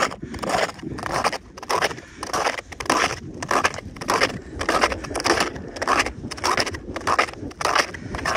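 Snowshoes crunching through crusted snow at a steady walking pace, one crunch with each step, two to three a second.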